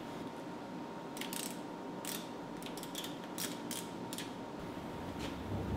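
Ratcheting driver clicking in short, irregular runs as screws holding a sheet-metal brace are backed out, over a faint steady whine.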